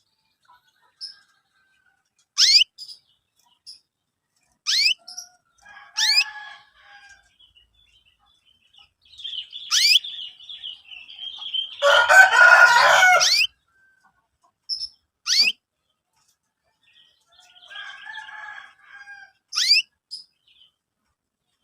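Young canaries chirping: separate sharp, downward-sweeping chirps and short high notes every few seconds, with one louder, dense burst of scratchy chattering lasting about a second and a half around the middle.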